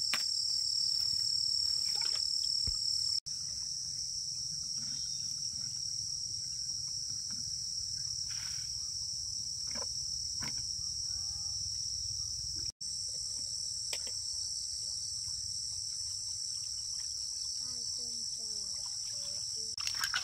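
Steady chorus of night insects, a continuous high-pitched trill, with a few faint chirps and clicks. The sound cuts out for an instant twice.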